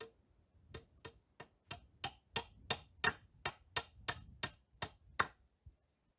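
A quick, even series of sharp knocks, about three a second and some fourteen in all, stopping a little after five seconds in.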